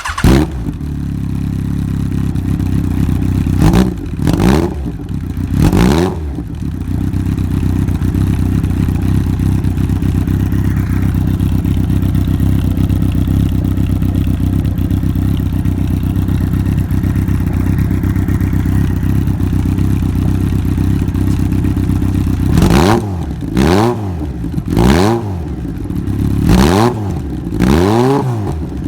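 Yamaha XJR1200's air-cooled inline-four running through a Mizuno Motor two-piece exhaust with its standard silencer. It idles steadily, with a few throttle blips about four to six seconds in. From about 22 seconds on it gives a quick series of about six revs, each rising and falling.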